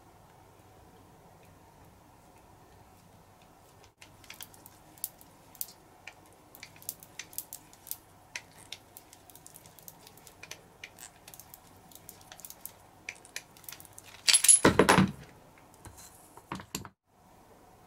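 SK11 pipe cutter being turned around a 12.7 mm stainless steel tube: small irregular metallic clicks and ticks from the cutter about four seconds in, then a loud metallic clatter with a short high ring near the end as the cut-off piece comes free.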